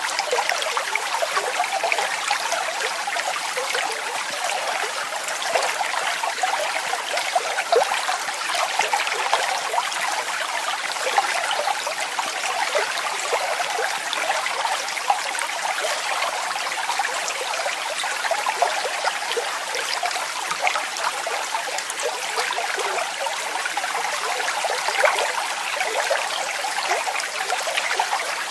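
Water splashing and trickling steadily over a small waterfall, with no deep rumble.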